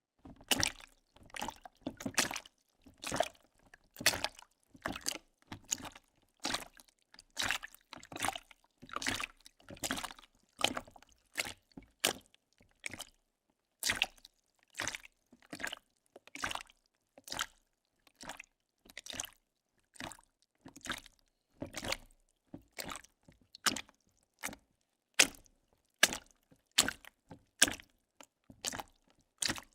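Footsteps walking through puddles: a steady series of wet splashing, squelching steps, a little under one a second, with a brief pause about halfway through.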